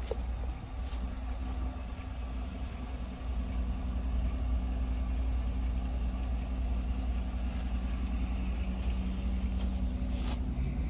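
Pickup truck engine idling steadily, a low even hum that grows a little louder about three seconds in.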